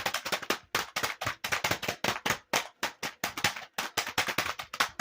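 Rapid computer keyboard key clicks in fast, uneven runs of several clicks a second, like frantic typing, with a couple of brief pauses.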